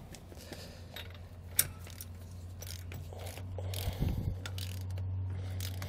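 Torque wrench with a 19 mm socket ratcheting as it tightens the bolt that clamps a tow bar's shank to its head. Irregular short clicks, one sharper about one and a half seconds in.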